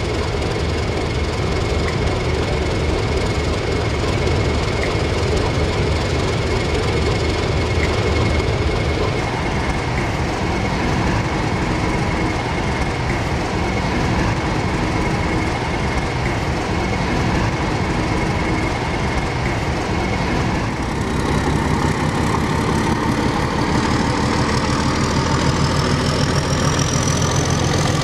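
British Rail Class 31 diesel-electric locomotive's English Electric V12 engine running steadily, then working harder about three-quarters of the way through as the locomotive moves off, with a slowly rising whine near the end.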